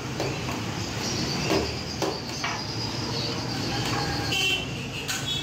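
Street traffic noise and background voices, with a few short clinks of a steel ladle against the metal platter and bowl around the middle.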